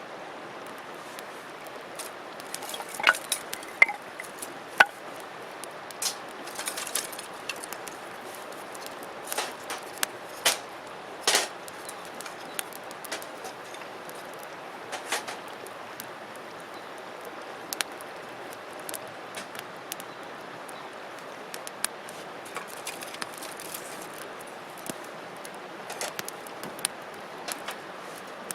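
Wood campfire crackling: irregular sharp pops and snaps over a steady hiss, thickest in the first dozen seconds, then sparser.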